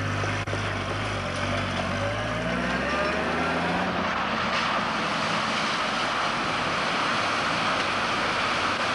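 Land Rover Series 2A's Holden straight-six engine running under load, its note rising over the first few seconds. It then gives way to a steady rush of water as the vehicle wades through a creek ford, pushing a bow wave.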